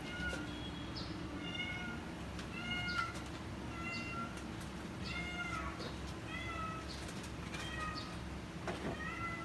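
A cat meowing over and over, short high calls about once a second.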